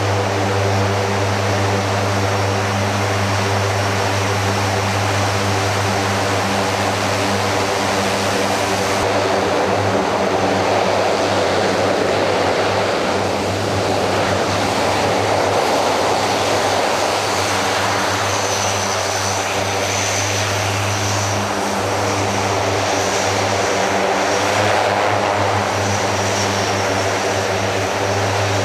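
Four Rolls-Royce AE 2100 turboprop engines with six-bladed propellers on a C-130J-30 Super Hercules running close by, with a steady propeller drone. For about ten seconds in the middle the drone turns into a rougher rushing noise as the plane kicks up dust, then the steady drone returns.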